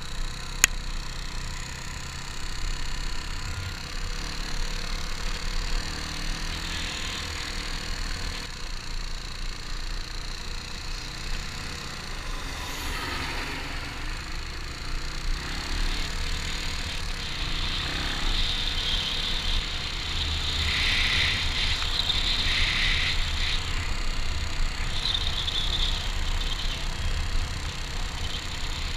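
Kawasaki KLR dual-sport motorcycle's single-cylinder engine running steadily at riding speed on a gravel road, heard close from a camera mounted on the bike, with a sharp click about half a second in.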